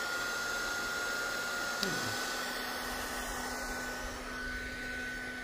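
Bauer 20V cordless heat gun running: a steady high-pitched motor whine over the rush of its fan blowing air. A click about two seconds in, after which the whine sits a touch higher and a low hum joins it.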